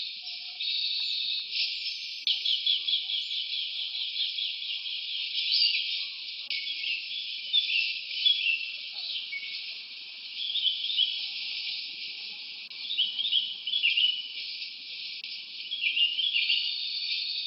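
Jungle ambience: a steady high drone with short chirps and trills over it, including a fast, rapidly repeating trill a couple of seconds in.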